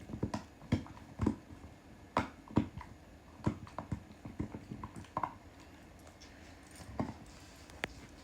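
A run of irregular light clicks and knocks, close together for about five seconds, then only a few, with one sharp click near the end.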